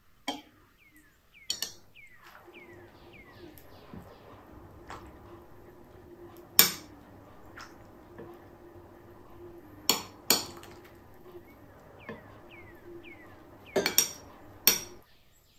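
Metal serving utensils clinking against a glass bowl and a plate as noodle salad is served out: about eight sharp clinks, the loudest about six and a half seconds in and a quick cluster near the end.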